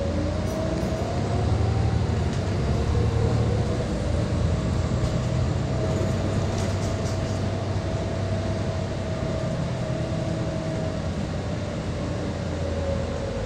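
A double-decker bus's engine hum, heard from the upper deck while the bus drives along. A whine over it rises slightly at the start, holds steady and falls away near the end.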